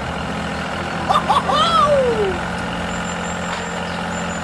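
A vehicle engine running steadily. About a second in there is a short voiced call that glides up and then down in pitch.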